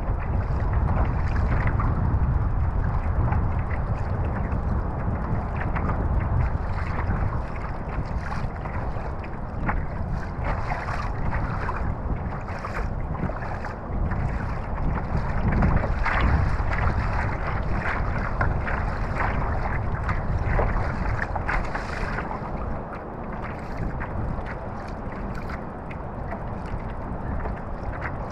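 Wind buffeting the microphone and water slapping and splashing against the hull of a kayak moving across choppy water, with irregular short splashes over a steady rush.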